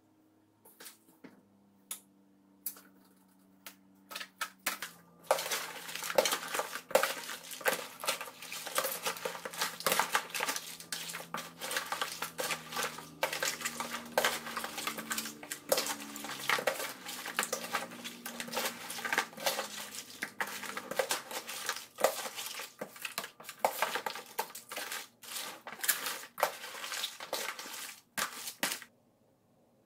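Pieces of raw blue crab shell clattering and crunching as a spoon stirs them through thick seasoning paste in a plastic basin. Only a few scattered clicks at first, then dense, busy clicking from about five seconds in that stops shortly before the end.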